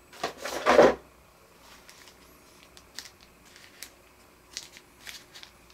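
Thin plastic packaging bag crinkling loudly for about the first second as the figure is drawn out of it, followed by a few faint light clicks and rustles of handling.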